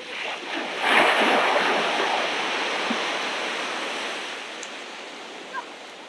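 An ocean wave breaking on the beach about a second in, its surf washing in and slowly fading away over the following seconds.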